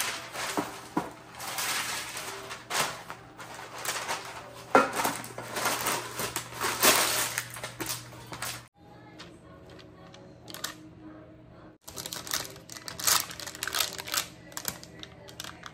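Parchment paper crinkling and rustling as it is handled and pressed into a baking pan, with light kitchen clatter. The crackling stops suddenly about two-thirds of the way through, then picks up again after a quieter stretch.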